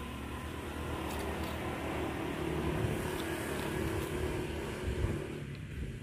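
A motor engine runs steadily with a low rumble and hum; the hum drops away about five and a half seconds in.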